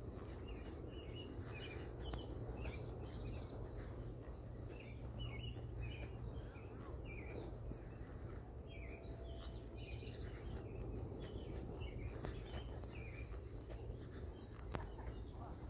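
Many small birds chirping, with dense short repeated calls all through, over a steady low background hum. There is one sharp click near the end.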